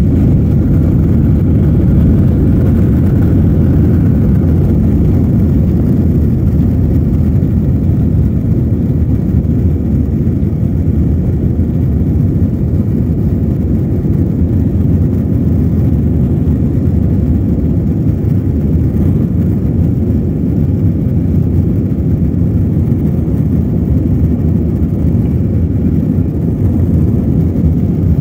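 Jet airliner heard from inside the cabin while taxiing: a steady, even low rumble of engines and airframe.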